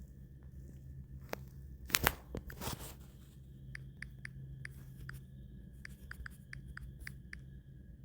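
Handling noise: a couple of sharp knocks about two seconds in, then a quick run of light clicks, over a low steady hum.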